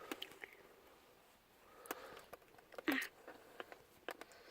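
Faint scattered clicks and handling noise of small plastic parts, as a speedometer bulb holder is pressed back into the instrument cluster, with a brief louder knock about three seconds in.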